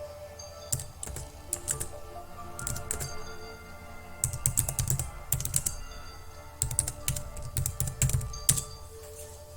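Computer keyboard being typed on in several quick bursts of key clicks, over quiet background music.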